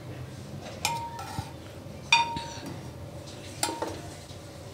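A spoon knocking against a steel pot while stirring curdled milk and whey. It clinks three times, about a second and a half apart, each clink ringing briefly.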